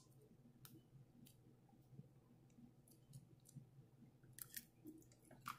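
Faint clicks and crinkles of a small honey packet being handled and squeezed open with long fingernails. A few scattered clicks come early, with a denser, louder cluster about four and a half seconds in and another near the end.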